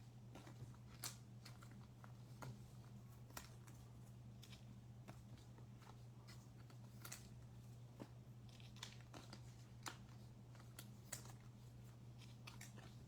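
Faint, irregular clicks and light rustling of trading cards and pack wrappers being handled, over a steady low electrical hum.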